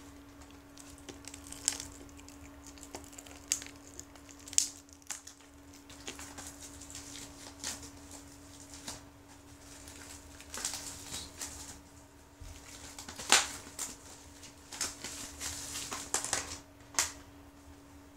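Plastic packaging of a Blu-ray case being handled and opened: irregular crinkling with sharp crackles, the loudest about thirteen seconds in, over a steady faint hum.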